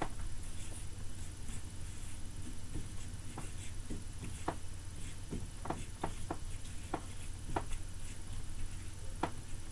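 Dry-erase marker writing on a whiteboard: a string of short, irregular squeaks and scrapes as the letters are stroked out, over a low steady hum.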